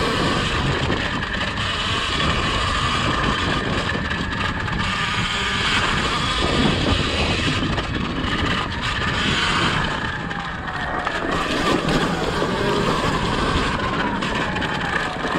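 Surron Ultra Bee electric dirt bike riding over a rough trail: the electric motor's whine rises and falls with the throttle, over the rattle and clatter of the bike on the bumpy ground. About two-thirds through, the whine drops as the bike slows, then picks up again.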